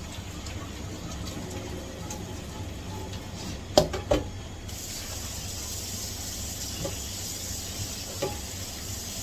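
Two short knocks a little before halfway, then a kitchen tap running steadily as a hiss from about halfway on, filling the bowl for another rinse of the rice.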